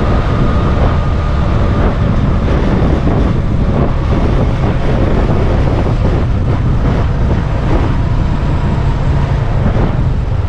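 Motorcycle engine running as the bike is ridden, mixed with heavy wind rush on the rider's microphone.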